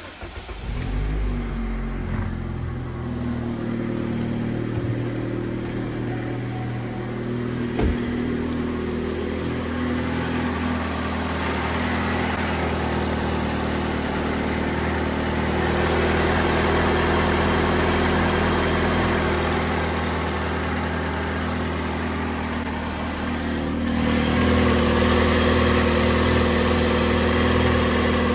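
Vauxhall A18XER 1.8 litre four-cylinder petrol engine starting about half a second in and then running steadily at idle, with its new timing belt fitted. An exhaust blow, a leak that still needs fixing, is part of the sound.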